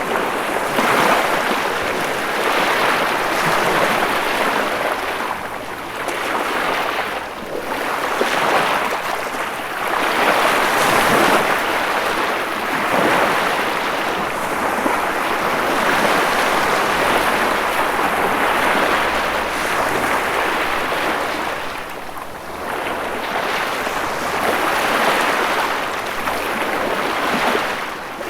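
Ocean waves breaking and washing on a shore, a continuous rushing surf that swells and eases every few seconds.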